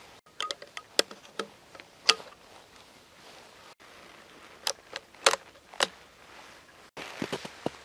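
Bolt-action .22 Magnum rifle being loaded: sharp metallic clicks as the box magazine is seated and the bolt is worked to chamber a round, in two short clusters. Near the end, footsteps crunching in snow.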